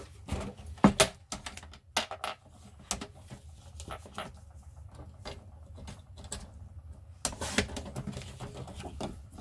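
Handling noise from paper and a paper trimmer: a run of clicks and taps as the sheet is set on the trimmer. About three-quarters of the way in comes a short scrape as the trimmer's sliding blade cuts the sheet.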